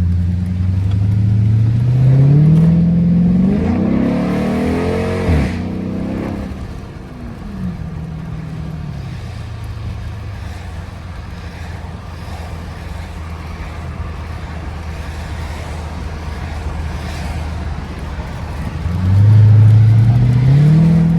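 Chrysler 300 SRT's 6.4-litre 392 Hemi V8 accelerating, its pitch rising and then dropping sharply at a gear change about five seconds in. It then settles to a steady cruise and revs up hard again near the end.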